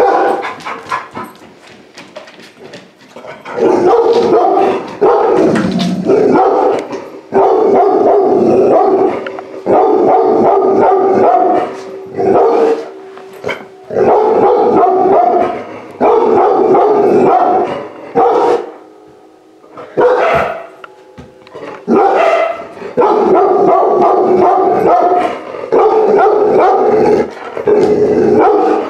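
A large-breed puppy barking loudly in repeated runs of rapid barks, each run lasting a second or so, with short pauses between them.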